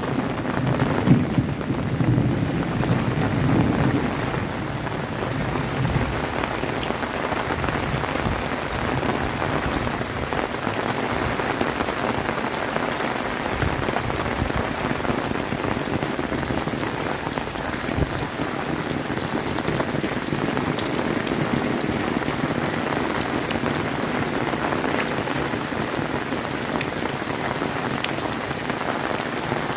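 Heavy tropical rain pouring down steadily, with the last of a thunder rumble dying away in the first few seconds.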